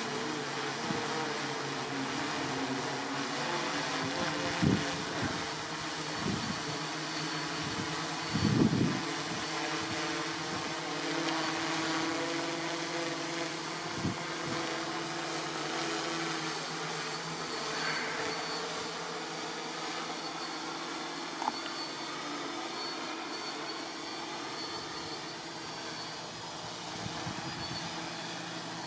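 Multirotor drone's electric motors and propellers humming steadily as it descends to land under return-to-launch. A few short low thumps break in, the loudest about eight seconds in.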